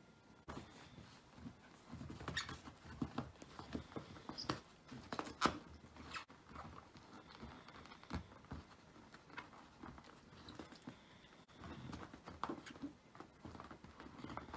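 Belgian Shepherd Groenendael puppy gnawing and chewing: irregular small clicks, scratches and knocks, the loudest about five seconds in.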